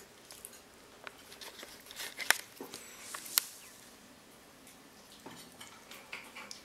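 Faint scattered clicks and soft rustles of a one-month-old Yorkshire terrier puppy nibbling and chewing at a bare toe and a rubber flip-flop strap, with a couple of sharper clicks in the middle.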